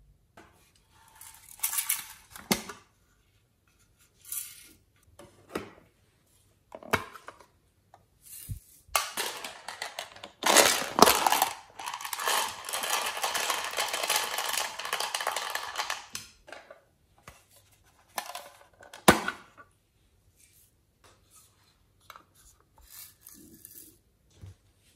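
Small plastic containers clicking and tapping as they are handled. This is followed by several seconds of dense rattling as sprinkles and tiny beads are shaken out of a container onto the slime, then one sharp click.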